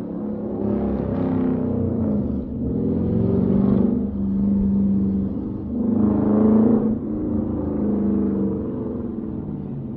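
Dodge Charger Daytona's 5.7-litre Hemi V8 exhaust rumbling, with two louder revving surges, about three and a half and six and a half seconds in.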